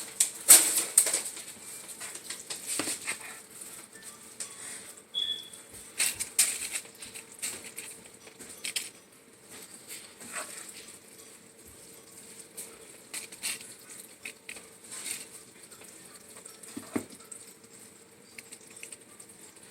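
Spoon scooping cooked ground beef out of a pan and dropping it onto a plate of tortilla chips: scattered scrapes, clinks and crackling taps.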